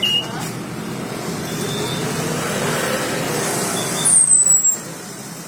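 A road vehicle passing, its noise swelling and then dropping away, with a single thin, high whistle falling slightly in pitch about four seconds in.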